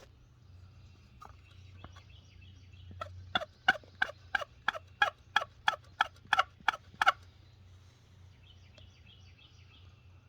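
A series of about a dozen loud turkey yelps, roughly three a second, starting about three seconds in and stopping about four seconds later, sounded to get wild turkeys to gobble back. Faint bird chirping goes on underneath.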